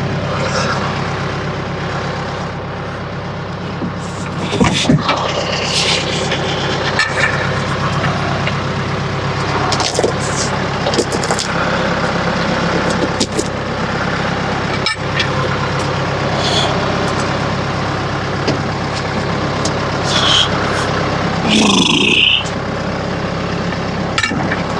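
Vehicle engine running steadily at an even speed, with scattered knocks and clanks and a brief hiss near the end.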